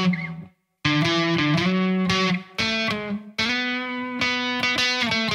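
Electric guitar, a Fender Telecaster, playing short scale phrases separated by brief rests: a silence about half a second in, then a couple of quick phrases, and a longer phrase that sustains held notes. The gaps are deliberate rests, used to make scale lines sound like a solo phrased like speech.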